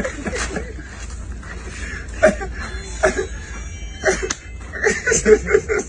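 A group of men laughing and calling out, with a quick run of laughter near the end. A single sharp smack about four seconds in.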